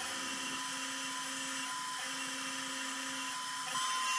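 Makita trim router spinning a small end mill at high speed, a steady whine as it mills crown slots into the end of a metal rod. It gets a little louder near the end.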